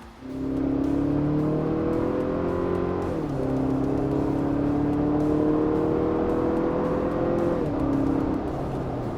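Toyota Tacoma's four-cylinder turbo engine through a Milltek cat-back exhaust, accelerating: the exhaust note climbs, drops at an upshift about three seconds in, climbs again, and drops at a second upshift near the end.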